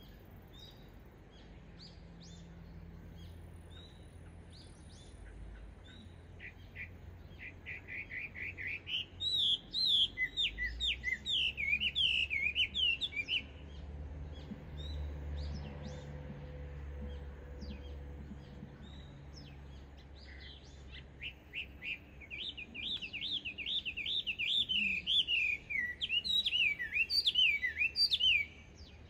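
Chinese hwamei singing: two long bouts of loud, fast whistled notes that slide up and down and repeat in quick series, the first starting about seven seconds in and the second about twenty seconds in, with short faint chirps in between.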